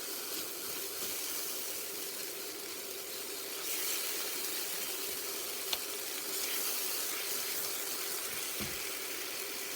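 Tomato and spice masala sizzling steadily in oil in a pan, cooked down to the point where the oil separates out. A single light click sounds about six seconds in.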